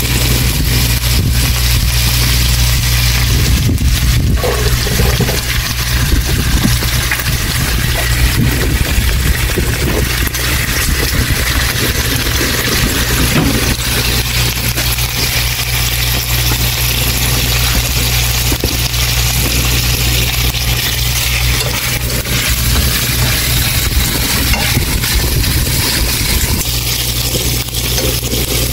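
Pork belly and garlic scapes sizzling in a frying pan on a portable butane burner, a steady frying hiss over a continuous low rumble.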